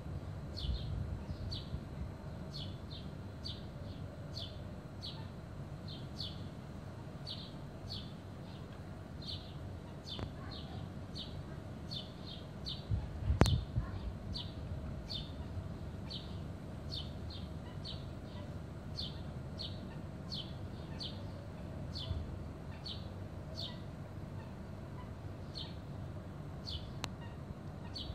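A steady run of short high chirps, one or two a second, which the uploader takes for a cat imitating a bird. A single sharp knock about halfway through.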